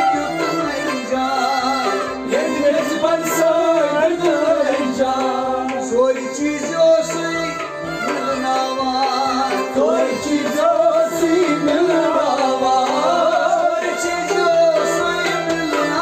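Kashmiri Sufi devotional song (sufiyana kalam): male voices singing a wavering melody over a bowed sarangi and a plucked rabab, with a tumbaknari goblet drum keeping a steady beat.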